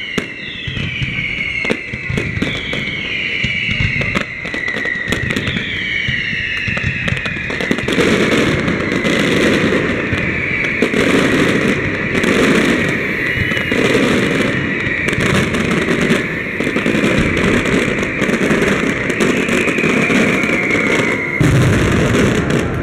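Aerial fireworks display: bangs and crackling with high whistles, several gliding down in pitch about once a second at first. About eight seconds in it builds into a dense, rapid barrage of bangs.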